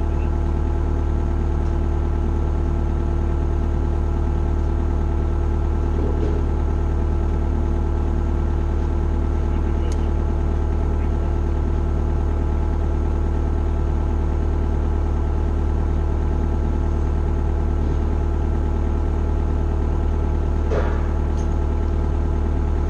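Excavator engine running steadily at an even idle, with a few faint knocks and clinks of work near it.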